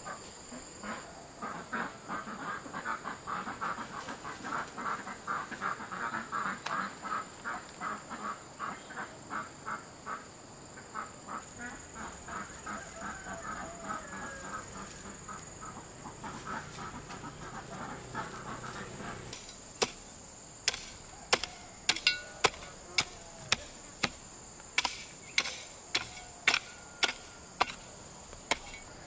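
A flock of ducks quacking in quick, chattering calls. About two-thirds of the way through the calls give way to sharp, evenly spaced knocks, about one and a half a second.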